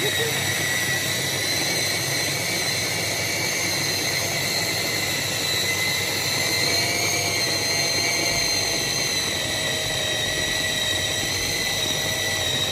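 Oberhof electric kitchen chopper running on its fast speed, its two stacked blades mincing raw meat. The motor gives a steady high whine over a churning rumble.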